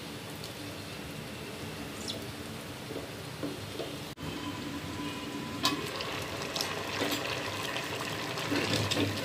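Chickpeas cooking in water in a metal pot, stirred with a wooden spoon: a steady watery sound. About four seconds in it breaks off for a moment, then spoon clicks and scrapes against the pot come more and more often.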